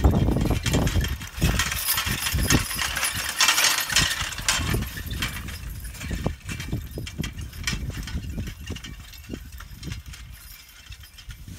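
Draft horse team pulling an iron-wheeled forecart and harrow: repeated sharp metallic clinks and rattles from the harness hardware and the implement, along with the horses' hoof falls.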